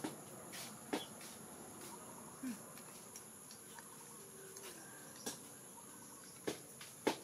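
A metal spoon clicking against a small ceramic bowl a few times, with two clicks close together near the end, over a steady high drone of insects.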